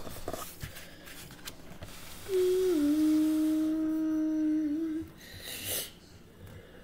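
A boy humming one long, steady low note that steps down in pitch just after it starts, followed by a short breathy noise.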